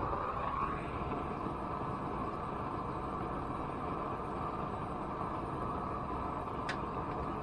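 Propane weed-burner torch burning with a steady, even rushing hiss. It is running low, a weak flame that the user calls a little drizzle burn rather than the full blast he expects.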